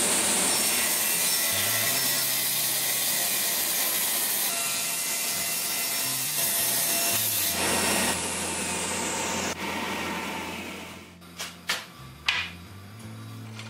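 Table saw ripping a hardwood board lengthwise: a loud, steady cutting noise for about eight seconds, after which the saw runs lighter and fades away. Near the end come two sharp knocks of the cut boards being set down on the cast-iron table.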